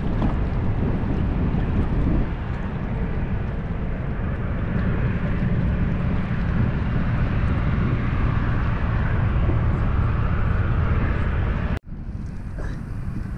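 Wind buffeting the microphone: a steady low rumble with an outdoor rush over it. It cuts off abruptly near the end and gives way to a quieter rush.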